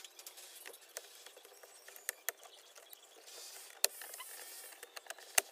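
Plastic dashboard trim and the factory car radio being handled and worked loose by hand: scattered sharp clicks and knocks, with a scraping rustle through the second half.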